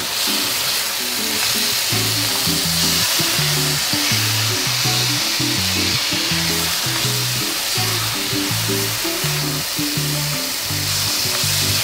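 Sliced apples with sugar and cinnamon sizzling in a frying pan as they cook down into strudel filling, under background music with an evenly paced low melody.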